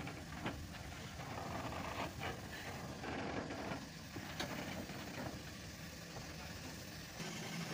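BR Standard Class 2 2-6-0 steam locomotive moving slowly tender-first, with steam hissing in irregular puffs and a few sharp knocks.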